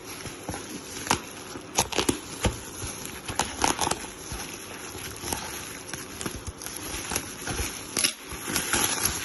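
Packaging crinkling and rustling as a parcel is unwrapped, with irregular sharp clicks and taps.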